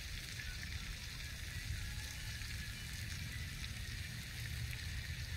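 Outdoor ambience: wind rumbling on the microphone under a steady hiss, with no club strike.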